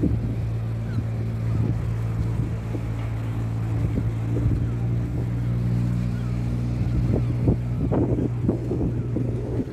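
A steady, low-pitched engine drone that holds one pitch throughout.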